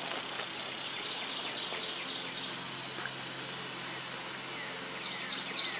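A steady, high-pitched chorus of summer insects buzzing without a break, with a few faint, short falling bird chirps near the end.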